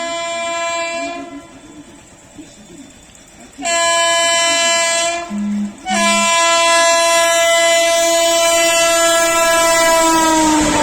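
Tebhaga Express locomotive's air horn blowing in long blasts: one ends about a second in, and after a pause come two long blasts with a short break between them. The last blast drops in pitch near the end as the train passes, and the rush of the passing train rises under it.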